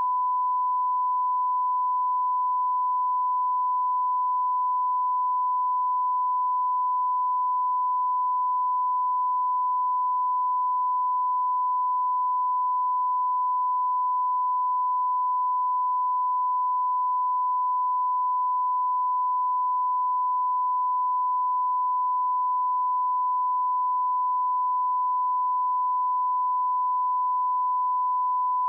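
Old television beep sound effect: one continuous pure tone held at a steady pitch and level, without a break.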